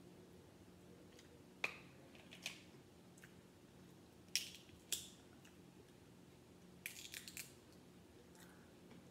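Crispy, overcooked crab leg shells being cracked and picked apart by hand: a few sharp cracks and snaps spread out, then a quick run of small cracks about seven seconds in, over a faint room hum.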